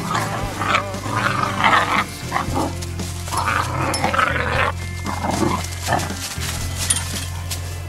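Young hunting-dog puppies vocalizing in short, irregular bursts as they play-fight, over background music with a steady low bass.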